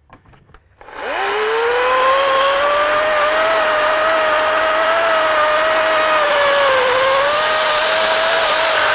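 EGO 56-volt cordless electric chainsaw spinning up about a second in with a quickly rising whine, then running steadily as it cuts through a log. Its pitch dips briefly under load late on.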